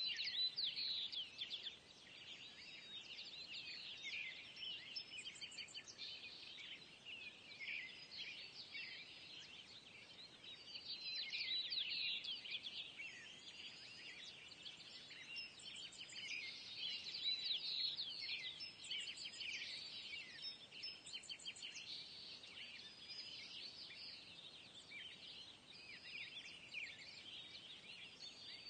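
A dense chorus of small songbirds chirping and twittering, many short high calls overlapping without a break, fairly faint.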